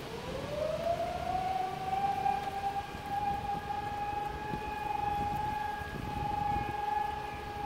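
A siren winds up, rising in pitch over about two seconds, then holds one steady wailing tone, over the hiss and rumble of a thunderstorm's rain and wind.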